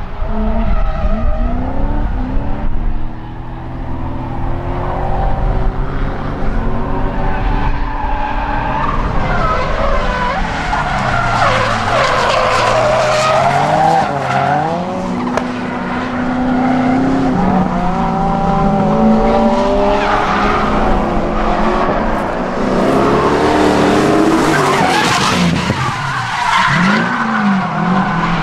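Drift cars sliding sideways at speed: high-revving engines rising and falling in pitch as the throttle is worked, over the continuous screech of tyres skidding and spinning.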